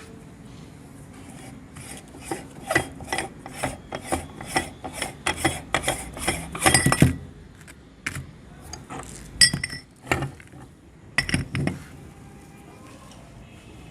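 A metal meat grinder crunching and clinking on hard candy-coated chocolate biscuits: a run of sharp clicks and crunches about two or three a second for several seconds, then a few scattered ones.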